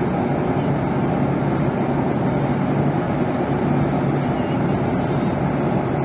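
Self-propelled forage harvester running steadily as it cuts its way into standing maize, a dense, even engine and machinery noise.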